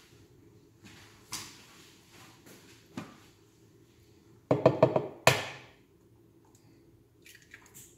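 An egg knocked several times in quick succession against the rim of a blender cup to crack it, about four and a half seconds in, then one sharper knock a moment later. A few lighter knocks come earlier.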